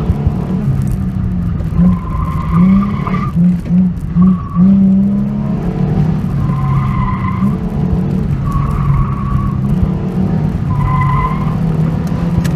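Fifth-generation Ford Mustang engine running hard under load through an autocross course, heard from the driver's seat, surging on and off the throttle a few times in the first half. Tires squeal briefly about five times as the car turns between cones.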